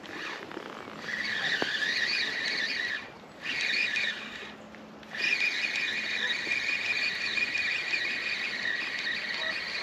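Fishing reel being cranked, a steady whirring whine that stops twice briefly, shortly after 3 s and again for about a second near 4.5 s, then carries on.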